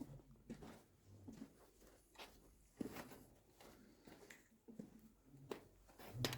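Faint, irregular footsteps and small scuffs in an underground tunnel, a soft step or knock every second or so.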